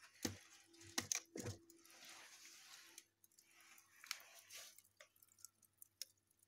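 Wood fire crackling with scattered small sharp pops, a few louder knocks in the first second and a half.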